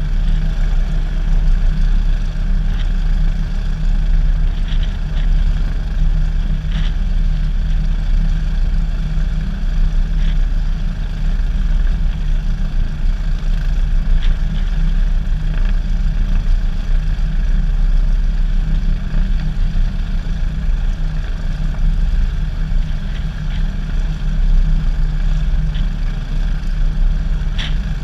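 Cessna 172SP's four-cylinder Lycoming IO-360 engine and propeller running steadily at low power with the plane standing still on the ground, at an even level throughout.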